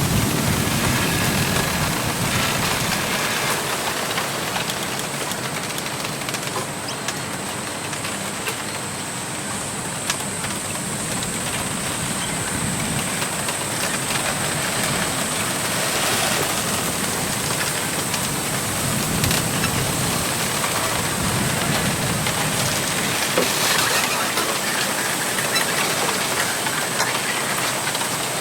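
Wind gusting through a bamboo grove: a steady rush of rustling leaves that swells and eases every few seconds, with bamboo stalks rubbing against each other and a few faint clicks.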